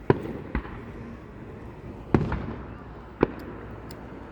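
Fireworks going off: four sharp bangs at uneven gaps. The bang about two seconds in is the loudest and trails off in a rumbling echo.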